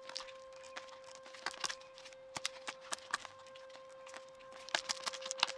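Fingernails picking and scratching at the sealed edge of a cardboard product box, making irregular small clicks and scrapes that get busier near the end. A faint steady hum runs underneath.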